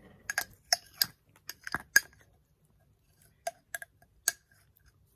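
A spoon clinking and scraping against a glass jar while scooping oats: a quick run of sharp, ringing clinks in the first two seconds, then three more a little later.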